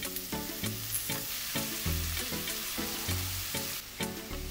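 Bitter melon, onion and ginger sizzling in hot oil in a frying pan, under background music with a steady beat of pitched notes.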